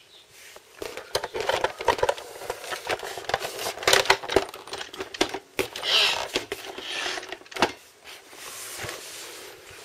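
Irregular clicks, knocks and short scraping and rustling noises, like hard objects being handled and set down.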